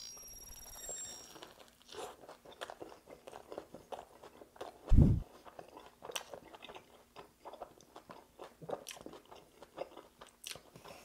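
A crunchy bite into a buffalo chicken sandwich on toasted bread with ranch coleslaw, then close-miked chewing full of crisp crunches and wet mouth clicks. About halfway through there is a single deep thump.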